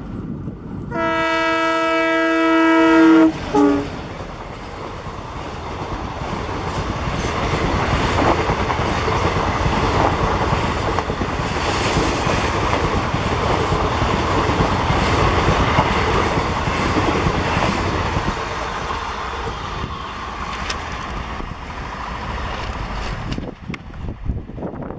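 WDG-3A ALCO diesel locomotive sounding one long horn blast followed by a short second toot, then the express passing at top speed: the locomotive and its coaches rumble by with wheels clattering over the rail joints. The rumble dies away near the end as the last coach passes.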